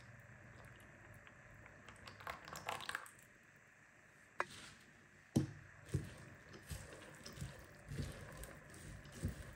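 Faint kitchen sounds as vegetable oil is added to chopped onion for frying. A short pouring sound comes about two seconds in, then a sharp clink and a run of soft knocks of utensils against the pan.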